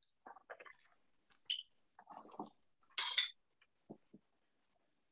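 Oat milk carton being opened and handled at a kitchen counter: a few small clicks and knocks as the cap comes off, then a short bright clatter about three seconds in, with two light taps after it.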